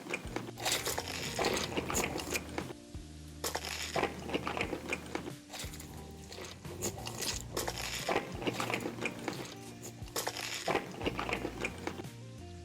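Crunchy bites and chewing of crisp food, in repeated bursts, over background music with steady bass notes.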